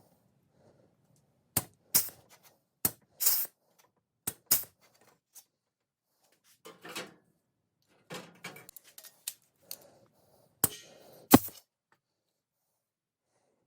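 Pneumatic flange and hole-punch tool cycling on thin sheet steel: a series of sharp clacks at irregular spacing, some followed by a brief hiss of air, the loudest about eleven seconds in.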